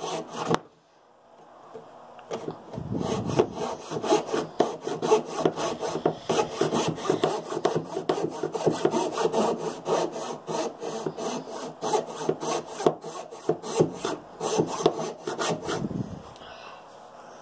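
Hand coping saw cutting through a pine wood block in quick back-and-forth strokes, starting about two seconds in and stopping near the end.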